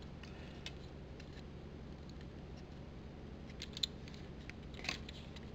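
A few faint clicks of hard plastic as a Masterpiece Optimus Primal action figure's forearm panel and blaster are worked by hand, the clearest about two-thirds of the way through, over a low steady hum.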